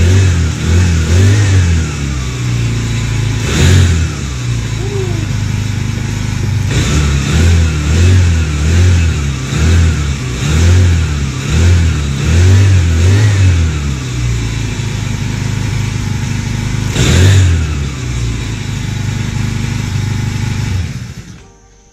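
Small 144F four-stroke 4 hp (60cc) engine mounted on a kayak, running out of the water and revved up and down over and over as the throttle is worked. It cuts off suddenly near the end.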